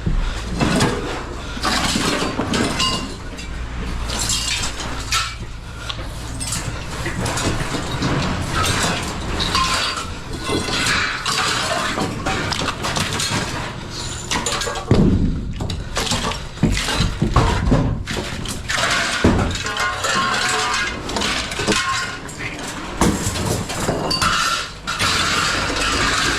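Scrap metal being unloaded: many irregular clangs, bangs and crashes of metal pieces landing, over a low steady engine hum in the first half.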